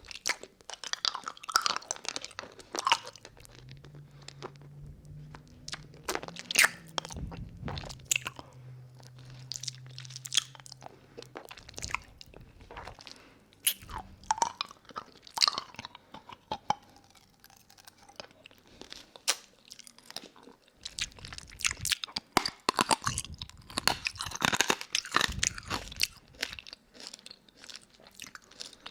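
Close-miked mouth sounds of eating a hard candy lollipop: irregular clusters of sharp, wet clicks and cracks, with short pauses between them. A low steady hum sounds for several seconds early in the stretch. Picked up up-close by a binaural microphone.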